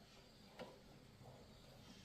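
Near silence: faint room tone with two faint, brief clicks, about half a second in and near the end.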